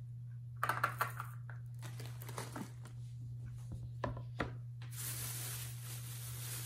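A plastic salt bag crinkles as salt is poured into a metal measuring cup. About four seconds in, a plastic cutting board is set down on a stone countertop with two knocks, and near the end an even hiss of rustling follows. A steady low hum runs underneath.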